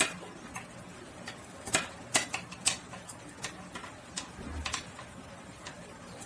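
Knitting needles clicking against each other as purl stitches are worked in yarn. The clicks are short and sharp, irregular, about two a second.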